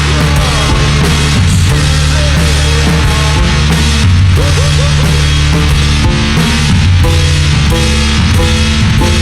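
Instrumental band music: a drum kit keeping a steady beat with kick and snare under sustained bass notes that change every second or so, with synth or guitar lines above.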